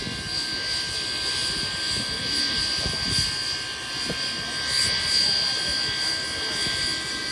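Steam locomotive 3526 venting steam from the top of its boiler: a steady hiss with a few thin whistling tones running through it.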